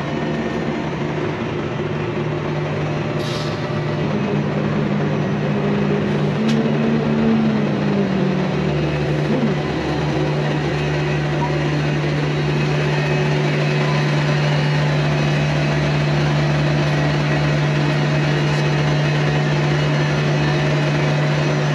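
Semi truck's diesel engine running at low speed while the rig reverses, a steady low hum. About four seconds in the engine note rises a little, and it settles back by about nine seconds.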